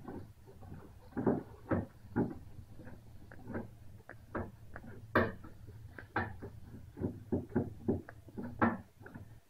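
Short, irregular clicks and creaks, about one or two a second, from a paintless-dent-repair tool pressing and slipping against the inside of a car wing panel as a crease is worked out, over a steady low hum.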